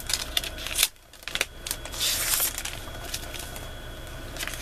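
Hands handling paper and a notebook on a craft table: a few light clicks and taps, then a short paper rustle about two seconds in.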